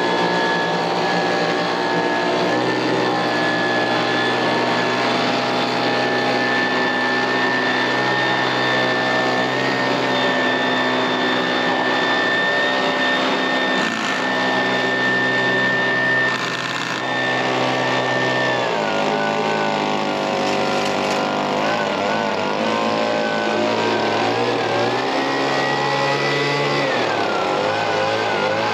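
Echo handheld leaf blower's small two-stroke engine running at high, steady speed while blowing leaves out of a rain gutter through a gutter-cleaning extension kit. About two-thirds of the way in the engine speed drops and wavers, picks up again shortly before the end, then falls back.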